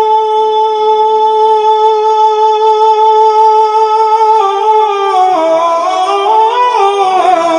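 A man singing a naat into a microphone over a loudspeaker: one long held note for about four seconds, then a melodic run that steps lower toward the end.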